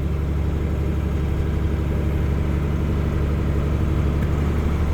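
Diesel engine of harvest farm machinery running steadily, a constant low hum with no change in speed.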